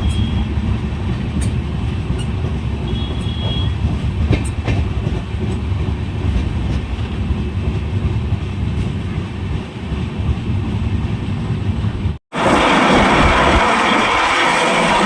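Passenger express train running on the rails: a steady low rumble with a few sharp wheel clicks. About twelve seconds in the sound cuts out for an instant and is replaced by a louder, even hissing noise.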